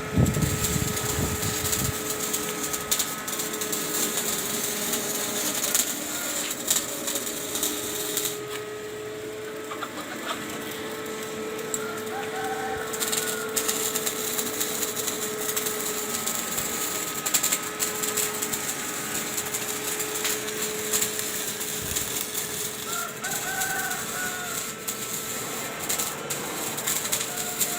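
A steady hum with scattered clicks and taps throughout, and short animal-like calls twice, about twelve and twenty-three seconds in.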